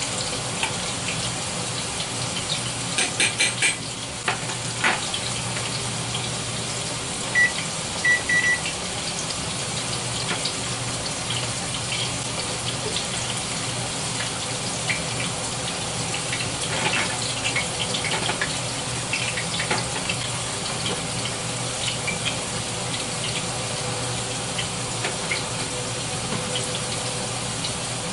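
Battered shrimp and potatoes frying in hot oil on the stove: a steady sizzle with scattered crackles and pops. A run of sharp clicks about three to four seconds in, and a few short high beeps about seven to eight seconds in.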